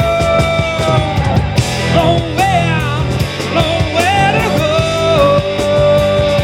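Rock band playing without vocals: a lead melody holds long notes, bending and wavering in pitch twice mid-way, over drums and bass.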